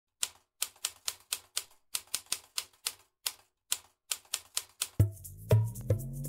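Typewriter keys clacking, about twenty irregular strokes, as the title is typed out. About five seconds in, music comes in under the last strokes: a low held note and a tone that rises steadily in pitch.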